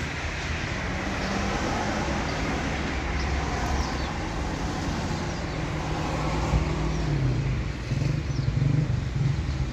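Zamyad pickup truck's engine running at idle, a steady low hum.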